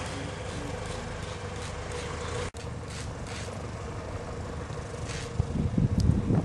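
Small single-engine propeller plane's engine running at low power as it taxis, a steady drone. The sound cuts out for an instant about two and a half seconds in, and louder low thumps and rumbles come near the end.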